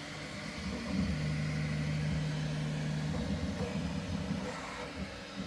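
Bambu Lab X1 Carbon 3D printer running mid-print, its stepper motors and fans making a continuous low mechanical hum. About a second in, a steady low tone holds for about two seconds as the toolhead moves.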